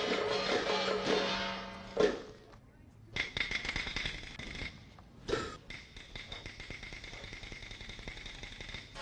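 Music accompanying a traditional Chinese opera dance performance. A dense instrumental passage over a steady low drone ends with a loud percussion strike about two seconds in; after a short lull come thinner sustained high tones with occasional sharp strikes, a strong one a little after five seconds.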